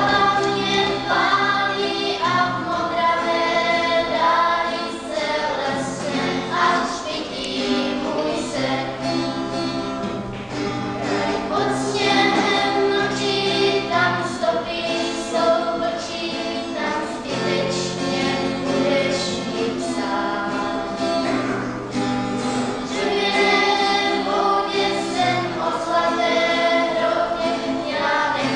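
A small group of girls singing a song together, accompanied by a strummed acoustic guitar.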